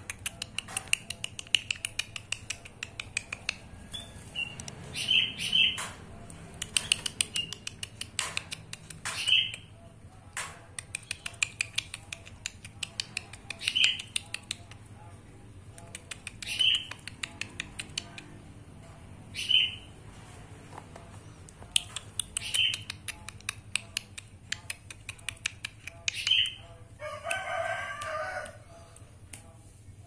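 Caged ruby-throated bulbul (kutilang emas) giving short, bright calls, one every three seconds or so, with many sharp clicks in between. Near the end, a longer, lower call lasts about two seconds.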